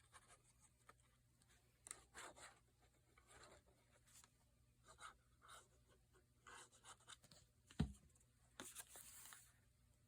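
Faint rustling and scraping of paper being handled and pressed down on a tabletop, with one soft knock about eight seconds in.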